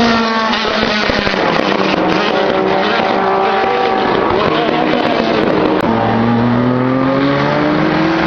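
Race cars at full speed on a circuit straight. The engine note drops as one car flashes past at the start. A second car's rising engine note builds from about six seconds in, and it passes right at the end.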